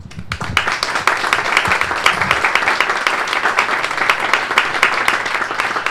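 A small group of people applauding, a dense run of hand claps starting just after the start.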